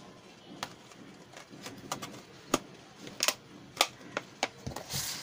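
A thin plastic food tub being handled and its clear lid pressed back on: a series of sharp plastic clicks and crackles, the loudest about two and a half and nearly four seconds in.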